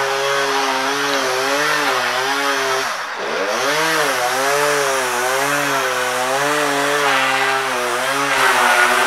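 Chainsaw running at high speed, its pitch wavering up and down continuously, with a sharp dip and recovery about three seconds in.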